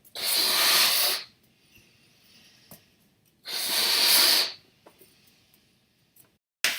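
Air rushing through a balloon's neck in two hissing bursts, each about a second long, with a pause between them.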